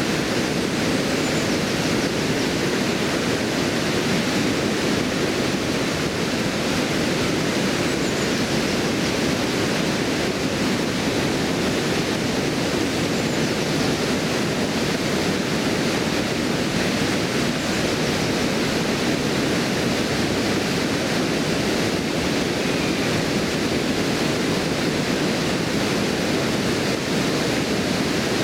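Steady rushing of river water pouring over a stone weir.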